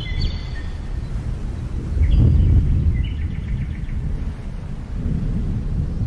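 A steady low rumbling noise, swelling about two seconds in, with small birds chirping over it: a few high chirps at the start, one near two seconds, and a quick run of repeated notes around three seconds in.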